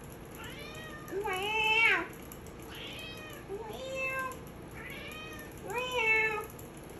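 Maine Coon cat meowing repeatedly, about six drawn-out meows, two of them much louder than the rest.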